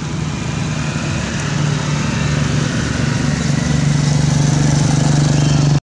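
A motor vehicle engine running steadily with a low hum that grows louder, cut off abruptly near the end.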